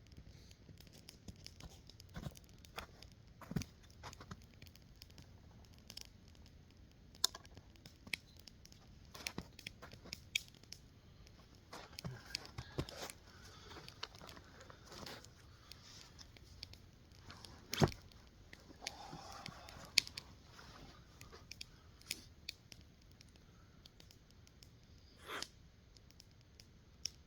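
Small campfire crackling, irregular sharp snaps and pops scattered through, one loudest snap about two-thirds of the way in, with soft rustling of handling now and then.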